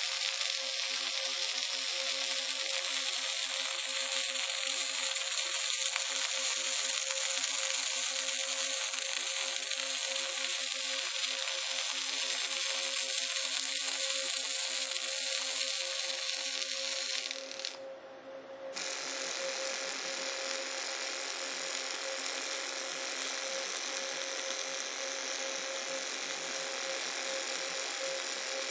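Robotic CO2 MAG welding arc: a steady hiss and crackle with a constant hum. The arc stops briefly a little past halfway, then strikes again and runs on.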